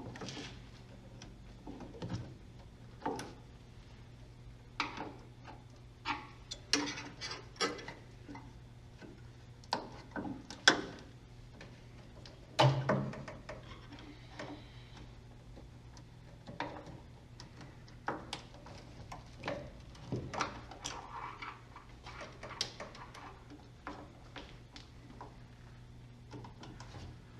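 Hand tools and metal parts knocking and clinking at irregular intervals during work on a car's steering and suspension, the sharpest knocks about eleven and thirteen seconds in, over a steady low hum.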